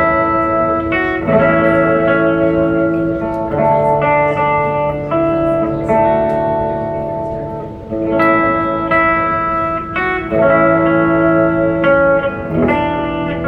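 Electric guitar played through an amplifier, an instrumental piece of ringing chords that change every second or two.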